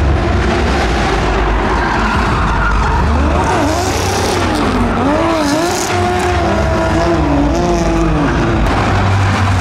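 Two drift cars sliding in tandem: engines running hard under a steady low rumble, their pitch rising and falling repeatedly from about three seconds in as the throttle is worked, over the hiss and squeal of tyres skidding sideways.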